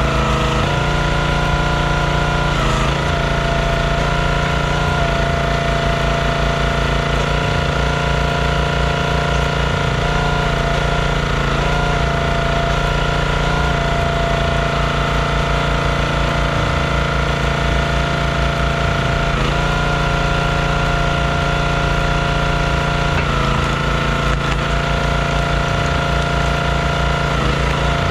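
Gas engine of a Performance Built hydraulic log splitter running steadily. Its note shifts briefly a few times as the ram is worked through logs.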